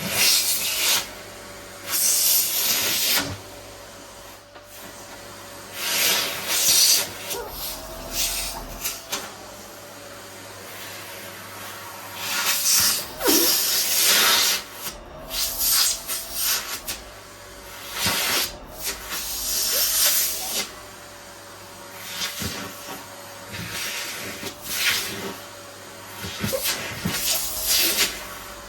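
Vacuum cleaner running, its motor a steady, slightly wavering whine, with loud surges of hissing suction every few seconds as the nozzle is worked over fabric.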